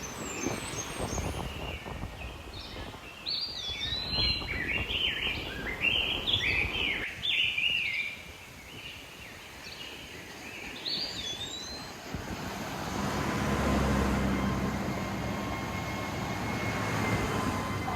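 Steady surf and wind noise with a small bird chirping repeatedly in quick, sweeping calls in the middle. About two-thirds of the way in, a low rumble builds and holds, with faint steady tones over it near the end.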